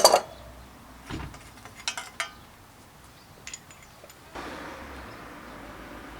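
Sharp metallic clinks and knocks of bicycle parts and tools being handled during assembly: a loud clatter at the very start, then a few lighter clicks spread over the next few seconds.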